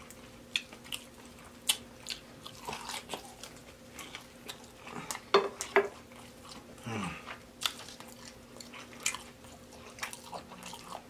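Close-miked eating of a deep-fried baby back rib: biting and chewing, with irregular crunches of the fried crust and wet mouth smacks. A faint steady hum runs underneath.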